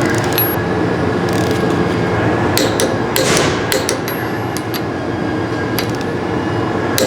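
Torque wrench tightening end-cap bolts to about 105 lb: sharp metallic clicks in small clusters near the start, around the middle and about six seconds in. A loud, steady machinery noise runs underneath.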